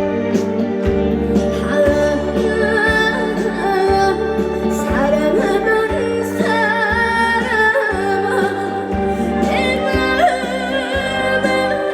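Trot song performed live: a backing track with a steady beat and a woman's voice singing a wavering, vibrato-laden melody.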